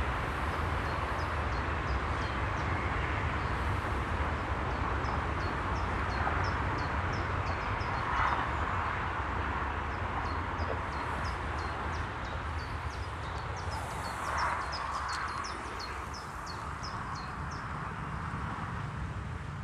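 A small songbird repeating short, high chirps, about two or three a second, over a steady low outdoor rumble.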